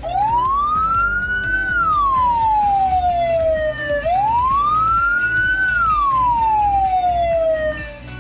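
Ambulance siren giving two slow wails, each rising for about a second and a half and then falling slowly back down. This is the slow-wail pattern the narrator gives for an ambulance carrying a body (jenazah).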